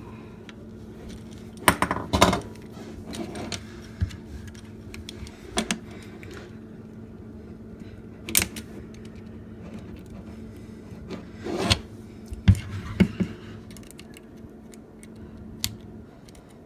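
Screwdriver and small metal parts clicking and tapping against a Glock 19 slide as the aluminium back plate is worked into place: irregular sharp clicks, a few louder knocks about two, eight and twelve seconds in.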